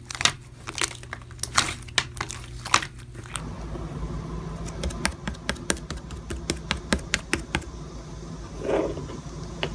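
Irregular sharp clicks and taps, a few each second and closer together in the second half, over a faint steady low hum.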